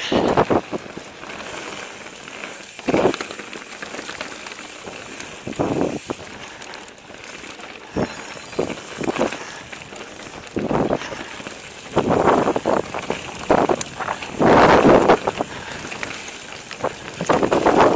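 Mountain bike riding over a rough forest trail: tyres crunching on gravel and the bike rattling in irregular bursts as it hits bumps, loudest about fifteen seconds in, over a steady rushing noise.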